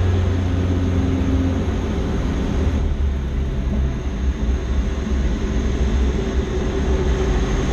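Robin R2160 light aircraft's four-cylinder Lycoming piston engine and propeller running steadily, with a strong low drone and rushing air, heard from inside the cockpit.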